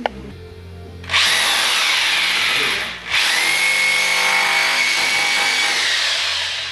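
Electric drill boring into the wall, in two runs: a shorter first run whose whine falls in pitch, then after a brief pause a longer run with a steady whine. A sharp click comes just before the first run.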